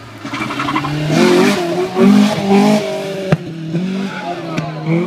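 Rally car engine coming into a tight corner and out again, its pitch stepping up and down through gear changes, then pulling away. A sharp crack comes just past the middle.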